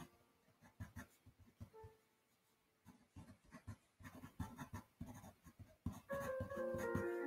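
Ink pen nib scratching on drawing paper in quick short strokes, with a brief lull about two seconds in. Background music with sustained notes comes in near the end.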